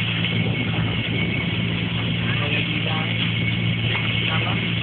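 A fishing boat's engine running steadily, a low, even drone with no change in speed.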